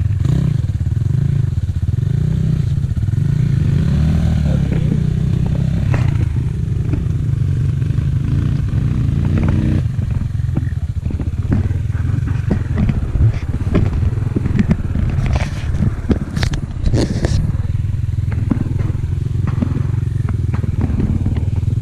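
Kovi Lite 250 dirt bike engine running, its revs rising and falling through the first half, then settling to a lower, steadier note with scattered clicks and knocks.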